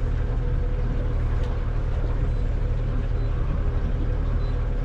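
A boat's engine running steadily: a constant low drone with a faint steady hum above it.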